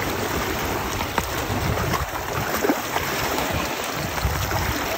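Shallow lake water splashing and lapping around a wading dog, with a low rumble on the microphone.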